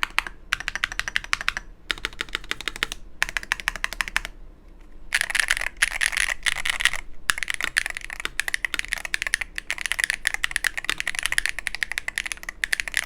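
Typing on a VGN Neon HE 75% keyboard with Hulk magnetic switches: rapid runs of crisp, poppy keystrokes in bursts, with brief pauses between runs.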